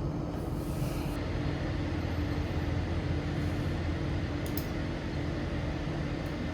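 A steady low mechanical hum with one constant tone in it, and a couple of faint light clicks about four and a half seconds in.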